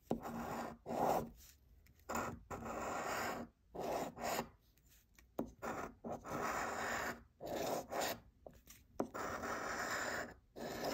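A large coin scraping the latex coating off a paper scratch-off lottery ticket, in a dozen or so short strokes separated by brief pauses.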